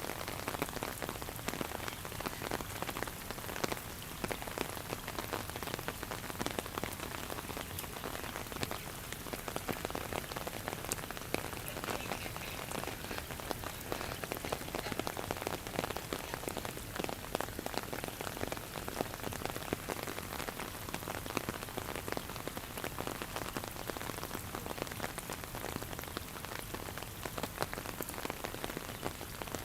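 Steady rain falling, with many separate drops ticking on a hard surface over an even hiss.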